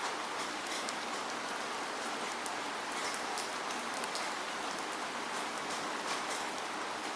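Steady rainfall: a continuous hiss of rain with many distinct drops pattering on a surface.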